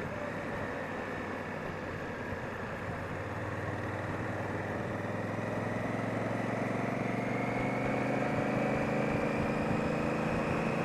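Honda Africa Twin's parallel-twin engine and exhaust under way, its note climbing slowly in pitch and getting louder as the bike gathers speed.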